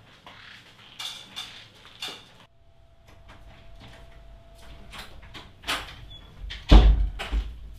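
Scattered knocks and clicks, with one heavy thump about seven seconds in, followed by a couple of softer knocks.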